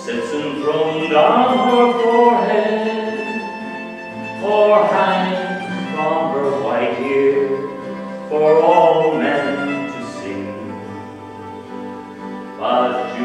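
A man singing a slow folk ballad in long phrases, accompanied by acoustic guitar, mandolin and fiddle.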